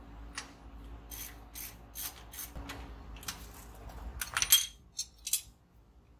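Metallic clicking of a ratchet worked in short strokes on the front brake caliper bolts, with clinks of hand tools and a louder clatter of metal about four seconds in.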